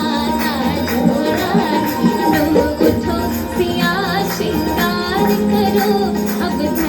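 Indian devotional folk song playing through a JBL SB190 soundbar: melody with singing over steady percussion.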